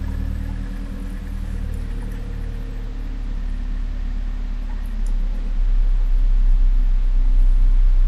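Motorhome driving along, heard from inside the cab: a steady engine hum with road noise. About five seconds in, a deep low rumble grows louder.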